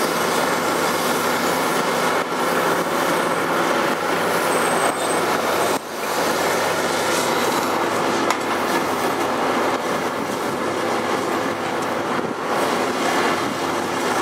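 Liebherr R 954 B demolition excavator at work: its diesel engine runs steadily under load while the attachment grinds and scrapes against steelwork and debris, a dense continuous clatter with a brief drop just before the middle.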